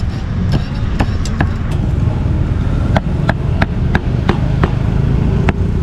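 A cleaver chopping grilled pork on a chopping board: about a dozen sharp strikes in quick runs of roughly three a second. Steady low traffic rumble runs underneath.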